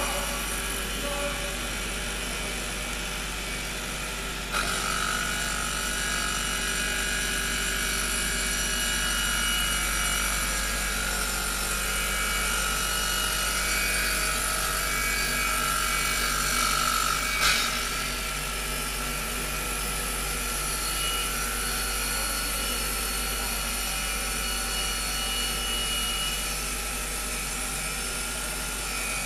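Circular saw blade on a CNC router spinning and cutting through a wooden sheet: a steady whine with several held tones, growing louder about four and a half seconds in. A single sharp crack sounds about halfway through.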